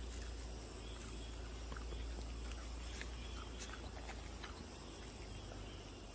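A dog chewing and tearing at grass, a scattering of faint soft clicks. Behind it, a steady high insect trill and a low rumble.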